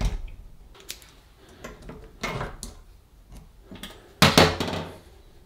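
Small metal clicks and handling knocks as a circlip is worked off the spindle of a kitchen tap's ceramic valve cartridge, with a louder knock about four seconds in.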